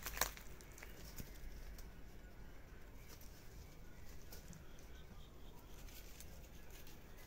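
Faint bird calls outdoors, with a single sharp click just after the start.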